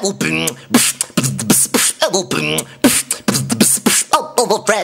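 Beatboxing: one voice making a quick, regular run of hissing snare- and hi-hat-like hits mixed with short pitched vocal sounds.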